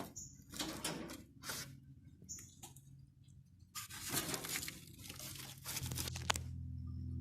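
Scattered scrapes, rustles and clicks from a window air conditioner's metal and plastic parts being handled, over a steady low hum that gets louder about six seconds in.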